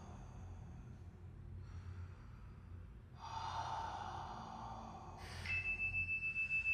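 Deep breaths in and out through the mouth, long and heavy, the last one the loudest. About five seconds in, a steady high ringing tone starts and carries on, its level pulsing about three times a second.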